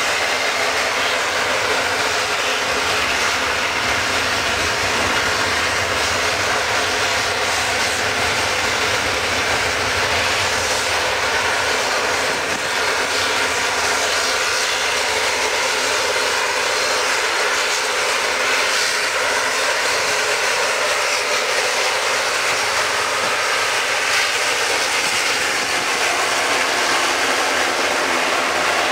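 The twin rear-mounted General Electric CF34 turbofans of a Bombardier CRJ-900ER running as the jet heads down the runway for takeoff: a steady jet whine and rushing noise.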